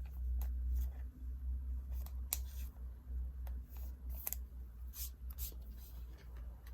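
Foil trading-card pack wrapper crinkling and cards being handled: scattered short crackles and clicks over a steady low hum.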